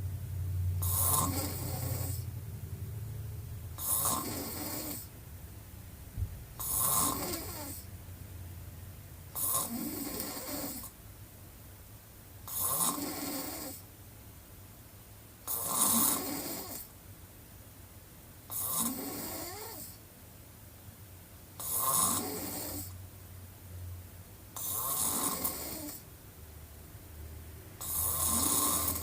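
A person snoring with the mouth wide open, one snore about every three seconds, about ten in all, over a steady low hum.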